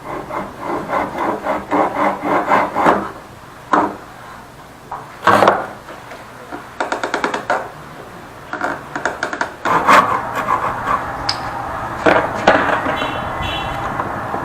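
Hand tools working wood: a run of quick, even rasping strokes for the first few seconds, then scattered sharp knocks and short, fast bursts of strokes.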